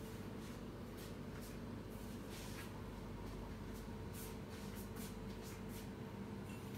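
Quiet room tone: a steady low hum with faint scattered rustles and clicks.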